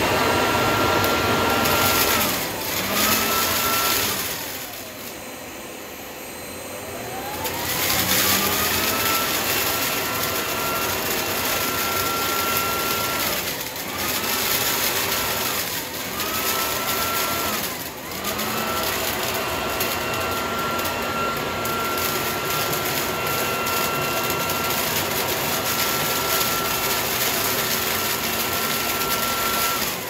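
Vacuum cleaner running with a steady high motor whine as it sucks up paper confetti. The whine drops away and winds back up several times, sinking lowest and slowest about four to seven seconds in.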